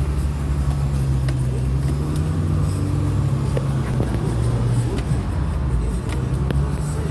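Car engine idling steadily in a traffic jam: a low, even hum with a few faint clicks.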